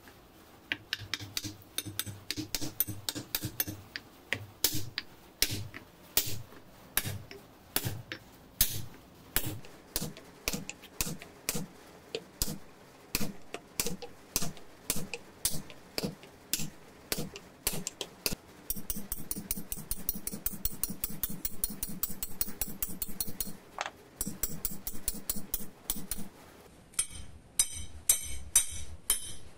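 Hammer blows on a wooden block laid over a lathe spindle's ball bearing and its aluminium housing, driving the new bearing into its seat. At first the strikes are steady, about one or two a second. About two-thirds of the way through they turn into a quicker run of lighter taps, and a few louder, sharper knocks come near the end.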